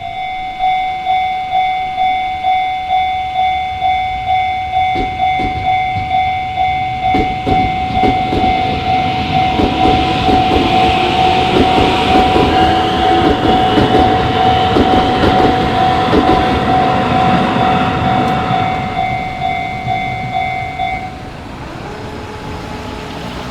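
Japanese level-crossing warning bell dinging steadily over and over while a Shin-Keisei electric train passes over the crossing, its wheels clattering over the rail joints as it grows louder and then fades. The bell stops shortly before the end.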